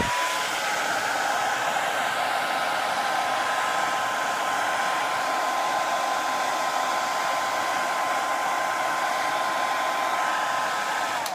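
Handheld hair dryer switched on, running loud and steady, then switched off. Its motor whine climbs to a steady pitch within the first half second, under a constant rush of air, and sinks away as it shuts off near the end.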